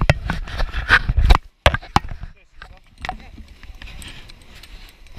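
Handling noise on a body-worn action camera: jacket fabric and a gloved hand holding a ski pole rub and knock against the camera and its microphone, making irregular sharp clicks over a low rumble, with a brief cut-out about a second and a half in.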